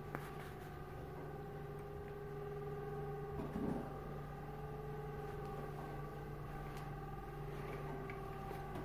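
Steady machine hum of a running appliance in a small room, several held tones at once, with a few light handling clicks and a brief rustle about three and a half seconds in.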